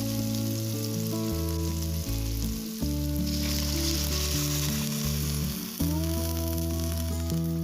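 Hot oil sizzling in a frying pan as food fries, a steady hiss that grows brighter for a couple of seconds midway. Background music with held notes plays under it.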